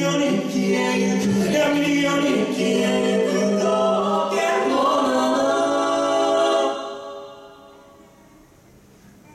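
Mixed-voice a cappella group singing through microphones, closing on a held chord that fades out about seven seconds in, the end of the song.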